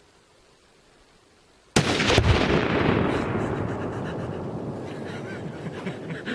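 A .243 rifle shot and the detonation of a half-pound tannerite charge: two sharp bangs about half a second apart, nearly two seconds in, then a long rolling rumble that slowly fades over several seconds.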